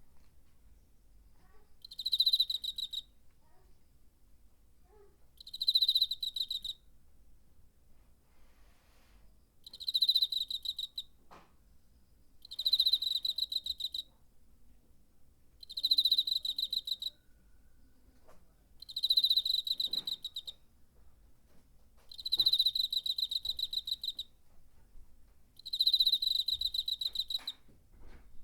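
A cricket chirping: bursts of rapid, evenly pulsed trills made by rubbing its wings together, each lasting about a second and repeating roughly every three to four seconds, about eight times.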